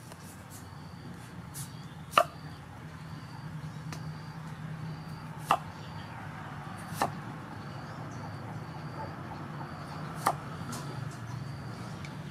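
A cleaver chopping peeled potato on a wooden cutting board: four sharp knocks spaced a few seconds apart as the blade strikes the board, with a few softer ticks between them.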